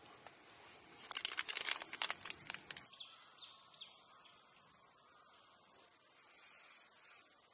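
Faint outdoor ambience. A quick run of clicks and crackles lasts nearly two seconds, then faint, brief bird chirps follow.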